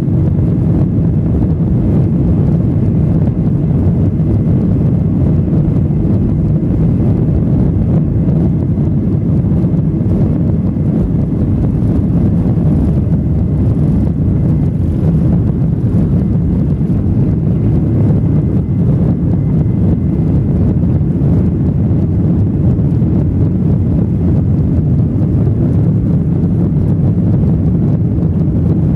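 Boeing 737-800's CFM56-7B turbofan engines running at takeoff thrust, heard from inside the cabin over the wing during the takeoff roll and lift-off. The cabin roar is loud and steady and deep, with a faint steady whine above it that fades out about two-thirds of the way through.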